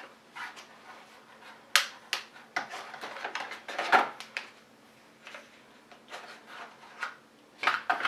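Clear plastic packaging lid being pried off and handled on a moulded plastic tray: scattered sharp clicks, snaps and crinkly taps, the loudest about two and four seconds in.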